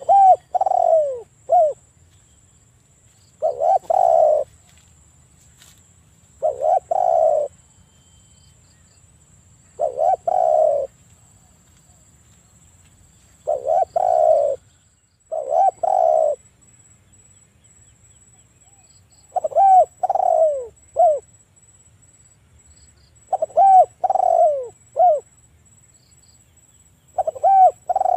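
Spotted dove cooing: short phrases of two or three low, falling coos, repeated about every three to four seconds, nine times in all.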